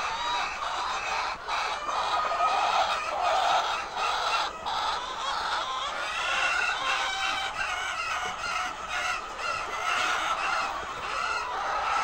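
A large flock of white laying hens clucking and calling, many voices overlapping in a continuous chorus.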